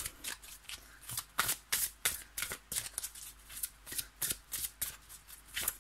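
A deck of oracle cards shuffled by hand: a quick, uneven run of soft card slaps and flicks, about four or five a second.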